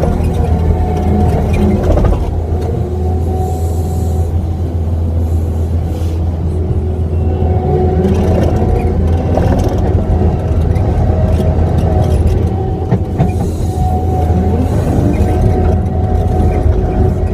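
Kubota skid steer's diesel engine running steadily with a deep drone, overlaid by a whine that rises and falls in pitch as the machine works.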